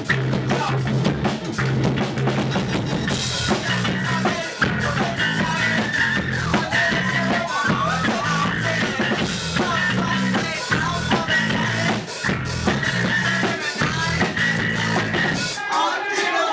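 Live rock band playing: a drum kit hitting hard over heavy low chords, with a high wavering melodic line joining about three seconds in. The low end drops out near the end.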